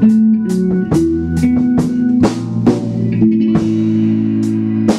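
Band music with no singing: a drum kit with snare and bass-drum strokes over a bass line and held chords.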